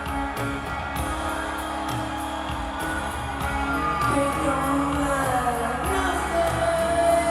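Live rock band performing, with singing over the instruments. A long held note slides down in pitch about four to six seconds in.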